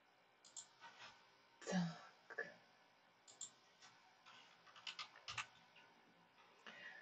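Faint scattered clicks and small desk-handling noises at a computer, typical of mouse clicks while switching presentation slides, with a soft throat or breath noise a little under two seconds in, over quiet room tone.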